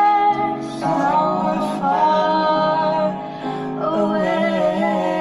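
A young woman singing held, wavering notes in a duet, with a man's voice singing a lower part beneath her.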